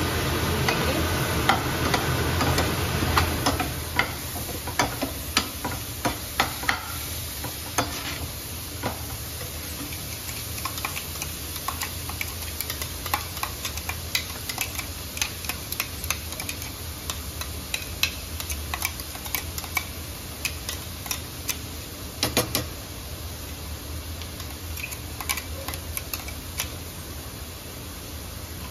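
Sliced onions and onion paste sizzling in oil in a nonstick frying pan, stirred with a perforated metal slotted spoon that scrapes and clicks against the pan. The stirring is loudest and busiest for the first few seconds, then the sizzle goes on steadily with scattered taps and a short cluster of clicks near the end.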